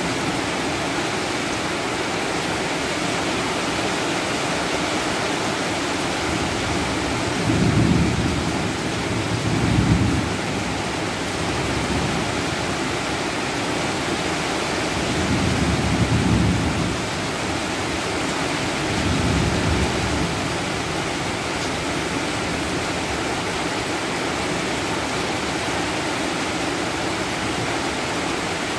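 Heavy rain falling steadily, with thunder rumbling low in four swells through the middle stretch.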